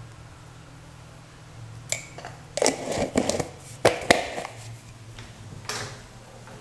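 Kitchen utensils tapping and scraping against a bowl while salt is added to ground semolina flour, with a few separate clinks and knocks about two, three, four and six seconds in. A low steady hum runs underneath.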